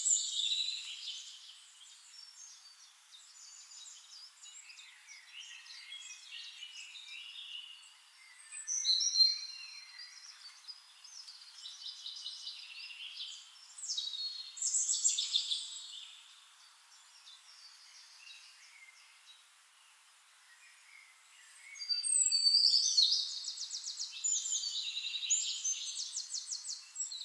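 Forest songbirds singing: phrases of high chirps and trills come in bursts every few seconds, with a longer run of rapid trills over the last five seconds.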